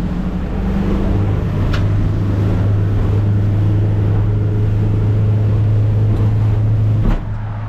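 Motorboat running at speed: a steady engine drone with a low hum, mixed with the rush of wind and water, cutting off sharply about seven seconds in.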